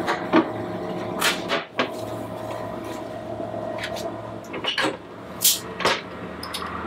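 A bottle of Guinness Extra Stout being opened: a few clicks and knocks of handling, then a short hiss and a click as the crown cap comes off, about five and a half seconds in. A steady low hum runs underneath.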